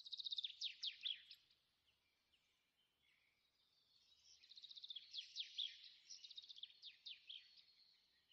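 A bird singing faintly in two bouts of rapid high chirps and quick downward-sliding notes: a short bout at the start and a longer one from about four seconds in.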